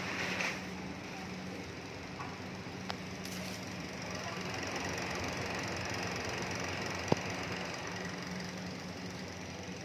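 Electric fan motor running with a steady low hum; a single sharp click about seven seconds in.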